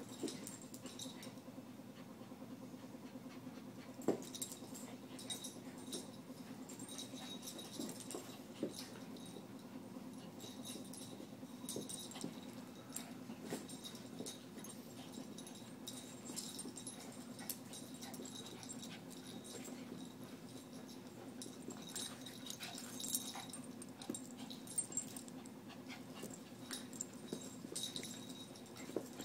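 Two small dogs, a Shorkie and a Morkie, play-wrestling on carpet: scuffling with frequent small sharp clicks, and short dog noises of play.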